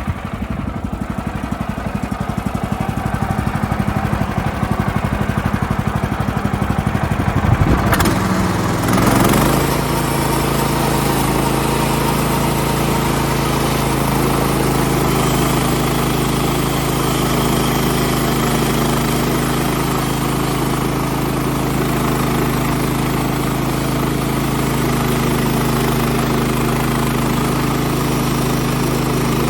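Pull-start engine of a portable sawmill running just after starting: it idles for about eight seconds, then revs up and settles into a steady, higher-pitched run.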